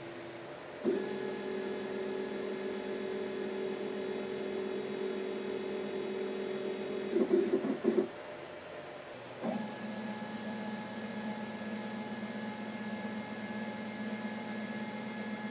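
Stepper motors of a Dyna Myte 2800 CNC mill driving its axes during homing, the machine moving on its own for the first time: a steady pitched whine for about six seconds with a brief rougher change near the end of it, a short quieter pause, then a second steady whine at a different pitch as the next axis runs toward its home switch.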